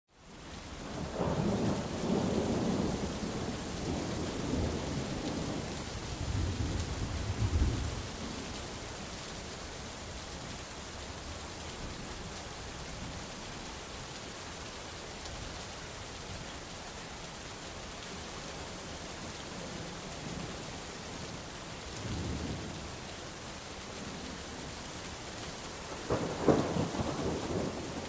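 Steady rain falling on forest foliage, an even hiss with no break. Low rumbles swell over it for the first several seconds, briefly a little after twenty seconds, and again near the end.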